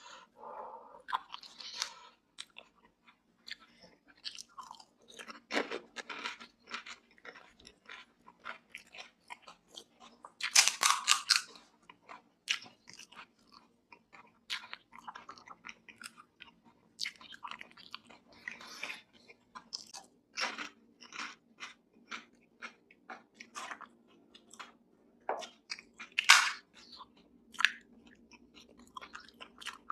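Close-miked chewing and crunching of crisp pani puri shells, with wet mouth sounds between. There are two louder crunching bites, about a third of the way in and again near the end.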